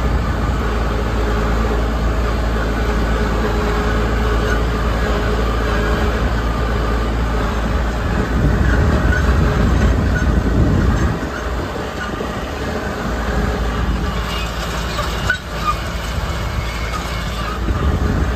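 Tractor engine running steadily at about 1650 rpm while pulling a no-till seed drill across rough ground. The sound swells for a few seconds about eight seconds in, and there is a single sharp knock about fifteen seconds in.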